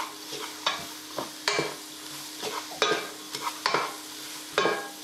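A wooden spoon stirring sliced leeks and red onions in a pot, in irregular scraping strokes, over the soft sizzle of the vegetables frying in oil with spices.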